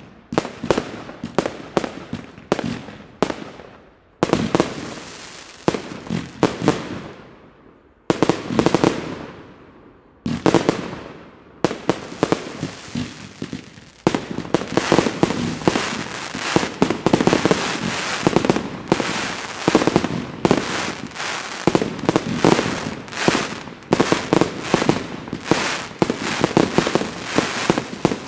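Fireworks display firing a rapid series of sharp bangs as shots launch and burst overhead. The firing breaks off briefly a few times in the first half, then runs as an almost continuous barrage from about halfway on.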